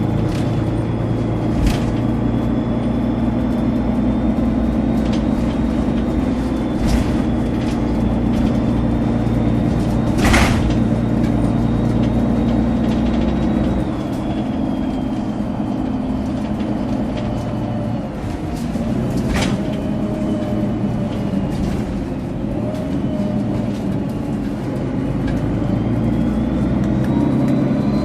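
Mercedes-Benz O530G Citaro bus under way, its diesel engine rumbling under a high, thin turbocharger whistle that drifts up and down in pitch, drops about halfway through and climbs again near the end. A few sharp knocks or rattles cut in, the loudest about a third of the way through.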